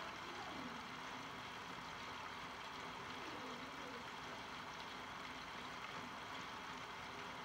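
Steady rain falling on a wet street, an even hiss of rain with no breaks.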